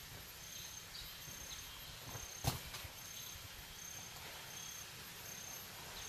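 Faint insect calls, a short high chirp repeating every second or so over a steady hiss, with one sharp knock about halfway through.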